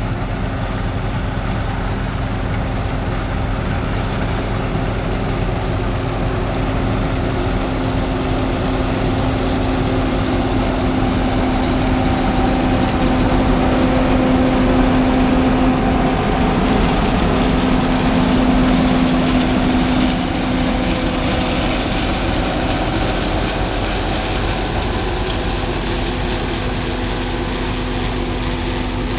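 Combine harvester running, a steady machine drone with a constant hum. It grows somewhat louder through the middle, then eases back a little later on.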